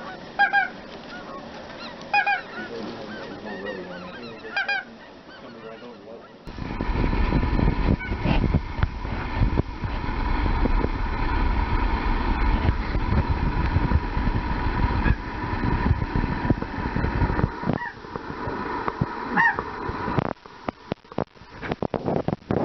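Geese honking, several calls over the first six seconds. Then a loud, steady low rumble with a faint steady whine cuts in suddenly and runs on, with a single honk heard again near the end.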